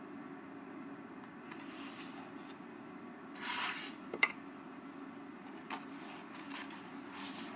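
Faint rustling of paperback pages being handled and leafed through, over a low steady room hum. One sharp, brief clink sounds about four seconds in.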